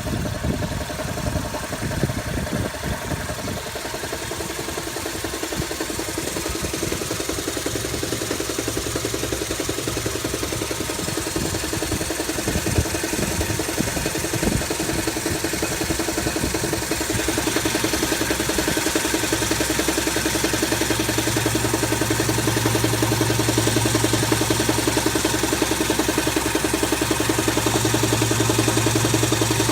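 Toyota 7A-FE 1.8-litre inline-four engine running, with an irregular knocking the owner cannot explain. The knocks stand out over roughly the first half; after that the engine runs steadier and a little louder, with a stronger low hum.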